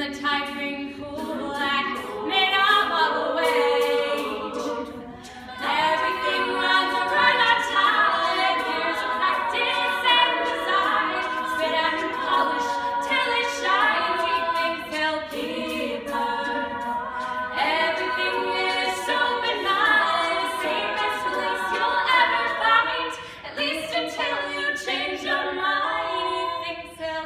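A small a cappella group of mixed male and female voices singing together in several parts, unaccompanied.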